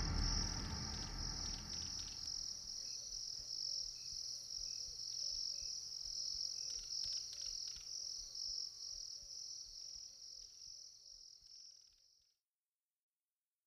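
The tail of a music track fades out, leaving a steady, finely pulsing high trill like crickets chirring, with faint small chirps beneath. The trill cuts off suddenly about twelve seconds in, followed by silence.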